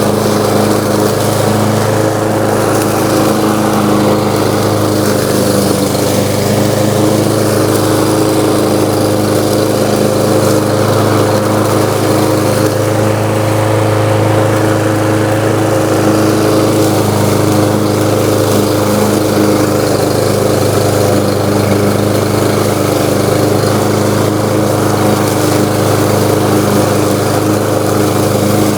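Craftsman M230 self-propelled lawn mower's 163cc engine running steadily under load while mowing tall grass.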